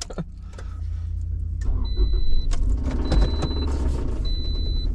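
Toyota Highlander engine running with a rapid rod knock, a sign of a failed connecting-rod bearing, louder over the first couple of seconds. A high electronic beep repeats about once a second.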